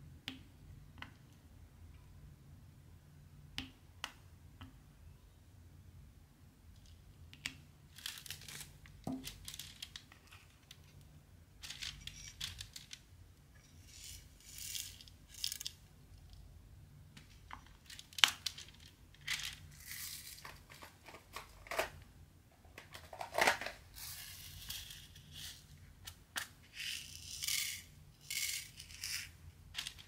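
Diamond-painting drills and their plastic containers being handled. First a few light, sparse clicks as drills are pressed onto the canvas with the applicator pen. Then, from about eight seconds in, repeated bursts of rustling and rattling as drills are shaken and moved in a plastic drill box and tray.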